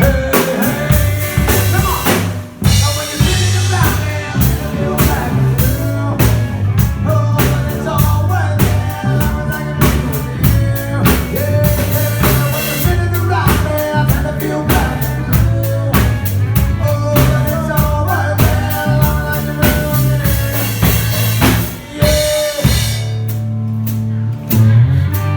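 Live band playing with a drum kit (bass drum and rimshots) over a bass line and other instruments. The music briefly drops out about two and a half seconds in and again around 22 seconds, and near the end it settles onto a held low note.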